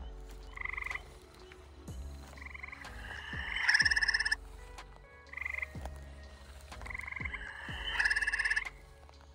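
Eastern gray tree frogs calling in chorus: short, pulsed musical trills about half a second to a second long, one after another and sometimes overlapping. The loudest come about four seconds in and again near the end.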